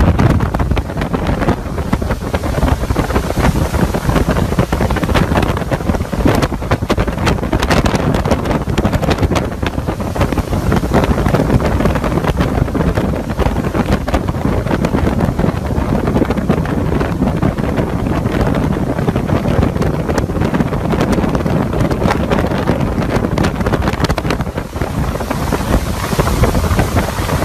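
Hurricane-force wind blowing hard and buffeting the microphone: a loud, continuous rush with frequent sudden gusts.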